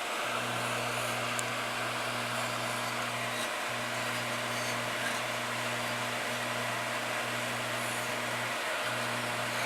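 Microwave oven running with a steady low hum, over a dense hiss from the flame-fed plasma burning inside it. The hum dips briefly twice.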